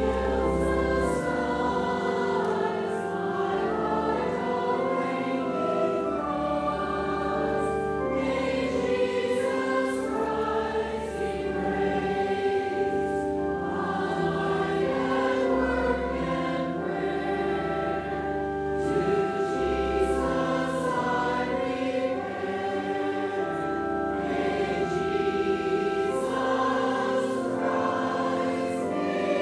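Congregation singing a hymn together, accompanied by a pipe or electronic organ holding sustained chords and bass notes.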